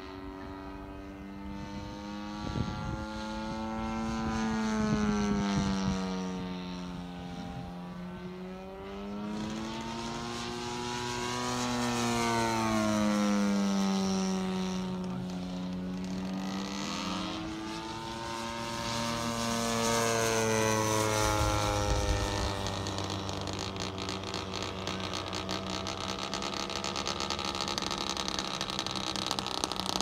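Radio-controlled Ju 87 Stuka model's motor and propeller droning as the plane makes passes overhead. It swells and fades three times, the pitch rising as it approaches and falling away as it passes, then settles into a steadier, more distant drone for the last several seconds.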